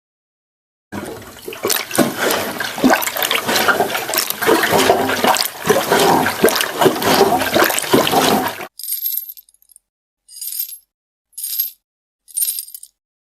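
Sound-effect clips: a dense rushing noise full of small clicks and knocks for about eight seconds, cutting off sharply, followed by four short high-pitched bursts.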